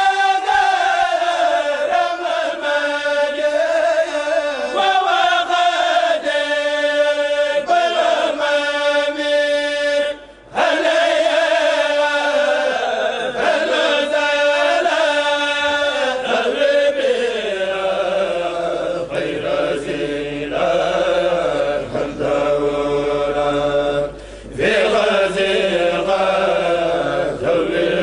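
A group of men chanting a Mouride khassida together without instruments, in long melodic phrases, with short breaks for breath just after ten seconds in and again near the end.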